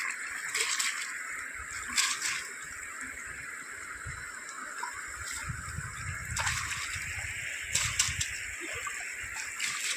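River water sloshing and splashing as a mesh fish net is pulled and lifted by hand through shallow water, over a steady rush of flowing water. Several short splashes, the loudest about two seconds in and again near eight seconds.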